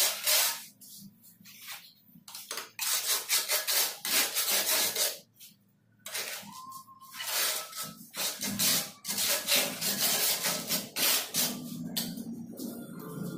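Repeated rough scraping and rubbing strokes from tile-setting work, stopping twice for a moment.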